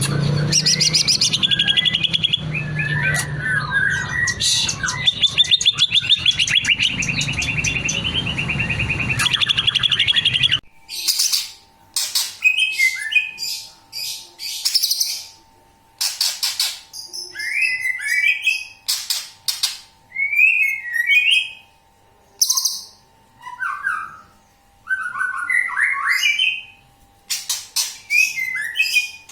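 Green leafbird (cucak ijo) singing in full voice, running through its repertoire of mimicked phrases in fast chirps, trills and sliding notes. For about the first ten seconds it sings over a loud low background din, then the sound abruptly turns clean, with short separate phrases over a faint steady tone.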